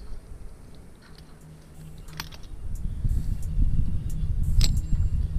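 Irregular low rumble of wind on the microphone, growing louder about two seconds in, with a few sharp clicks, the loudest about four and a half seconds in.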